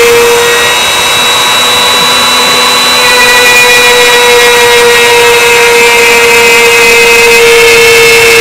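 CNC-driven wood router's bit cutting into a pine 2x2: the router motor running at high speed with a steady, loud whine over the hiss of the cut, its level and pitch shifting slightly about a second in and again around three seconds in.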